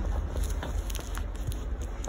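Interior of a Tatra T6B5SU tram riding: a steady low rumble with scattered short clicks and rattles.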